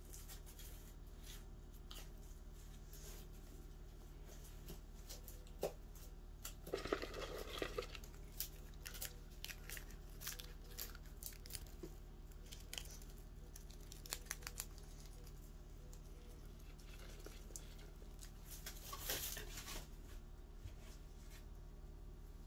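A monitor lizard crawling through dry leaves and soil: faint scattered rustles and crinkles, with two louder bursts of leaf crunching, one about seven seconds in and another near the end.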